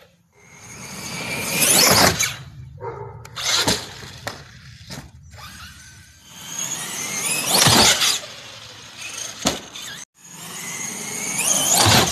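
An RC monster truck's motor and drivetrain whine, rising in pitch and loudness as it speeds up. This happens three times. Sharp knocks and clatter come between the runs as the truck hits the ramp and lands.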